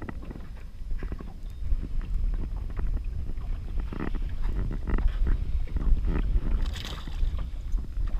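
Wind rumbling on the microphone with water lapping against the hull of a small open boat, and scattered knocks on the boat.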